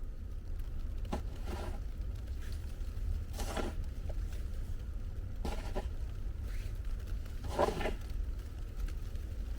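Outdoor ambience in a snowstorm: a steady low rumble with five short scrapes spread through, the loudest near the end.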